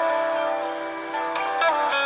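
A Samsung Galaxy S Duos (GT-S7562L) ringtone playing: a melody of long ringing notes, with a few quicker note changes in the second half.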